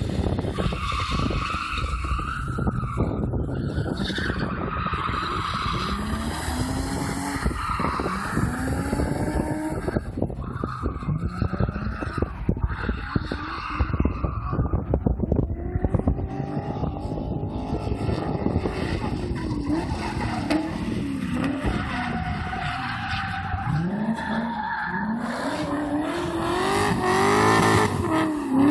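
BMW 3 Series drift cars revving up and down in repeated sweeps while their spinning rear tyres squeal and screech through the slides. The sound is loudest near the end, as an E30 slides past close by trailing tyre smoke.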